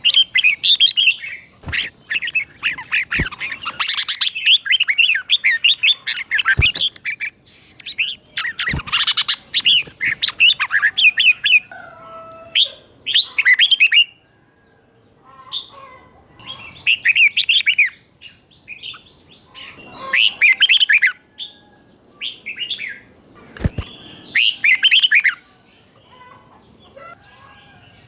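Red-whiskered bulbul singing in repeated bursts of quick chirping notes, the doubled 'double' song style prized in caged bulbuls. A few sharp clicks fall between the phrases, and there is a short pause about halfway through.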